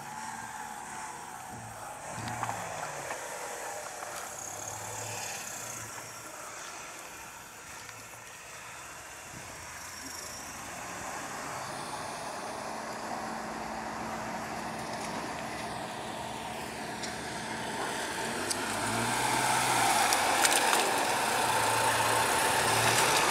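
Opel Frontera SUV's engine running at low revs as it crawls down a muddy bank and through a mud hole, getting louder over the last few seconds as it comes closer.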